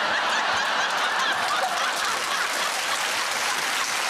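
Studio audience laughing and applauding together, a dense, steady sound with no voice standing out.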